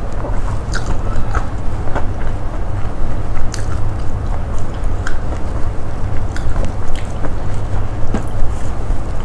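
Close-miked chewing and biting of a mouthful of rice and fish eaten by hand, with many irregular small clicks and crackles of wet mouth and food sounds. A steady low hum runs underneath.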